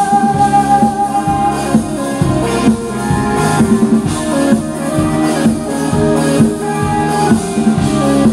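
Live indie rock band playing with electric guitars, keyboard and drum kit. A long held note ends about a second and a half in, and the band carries on instrumentally with a steady drum beat.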